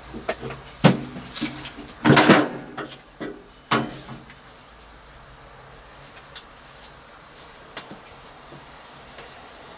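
A few sharp knocks and clatters, with a louder scraping rattle about two seconds in, as things are handled and set down. It goes quiet after about four seconds, leaving only faint ticks.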